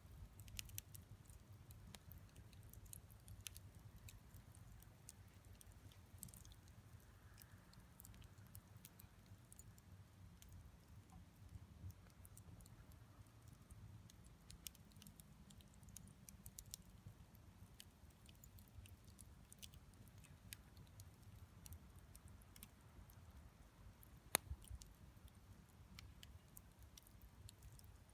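Wood campfire crackling faintly: scattered small pops and snaps over a low rumble, with one sharper crack about three-quarters of the way through.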